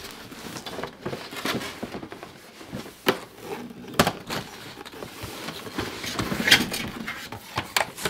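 Cardboard packaging being handled: white cardboard inserts and a kraft-cardboard box scraping, rustling and knocking as they are pulled out of a large shipping box. There are a couple of sharp knocks around the middle and a louder scrape about six and a half seconds in.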